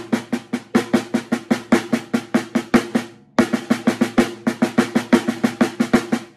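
Drumsticks playing a looped five-stroke sticking pattern (right, left-left, right-right, then left, right-right, left-left) on a drum kit's drums, as an even stream of strokes about six a second. There is a brief break about three seconds in before the pattern starts again.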